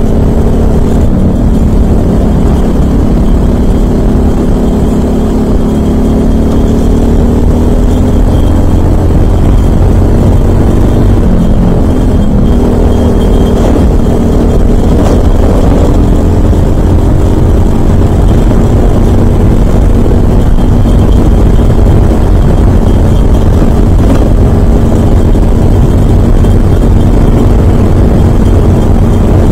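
Briggs & Stratton LO206 single-cylinder four-stroke kart engine at racing speed, heard from on board. Its note rises and dips with the throttle through the corners, over loud wind rushing past the microphone.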